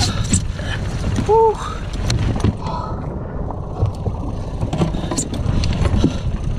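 Steady low rumble of wind and water around an inflatable boat, with scattered knocks and rubbing as a freshly landed yellowfin tuna is dragged across the rubber pontoon. A brief tone that rises and falls comes about a second and a half in.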